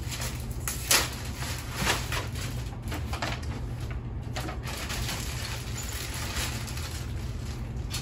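Plastic packaging rustling and crinkling in a few short bursts as bagged parts and papers are handled and pulled from a cardboard box, over a steady low hum.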